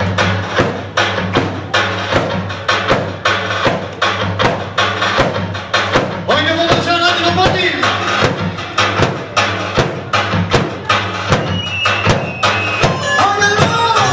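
Albanian folk wedding music: a steady, even drum beat under a melody line that comes in about halfway through and again near the end.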